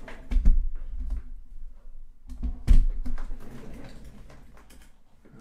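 Handling noise from a camera being picked up and repositioned: rustling and bumps, with two loud thumps about half a second and nearly three seconds in.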